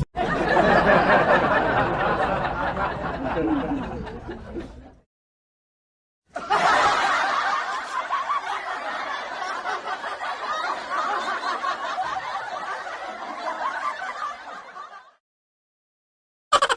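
Laughter sound effect in two takes: one of about five seconds, then after a second of silence another of about nine seconds that fades out. Near the end a rapid train of short pulses begins.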